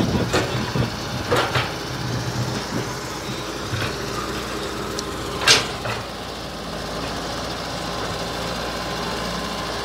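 An engine running steadily, with a few sharp knocks: one about half a second in, two close together about a second and a half in, and the loudest about five and a half seconds in.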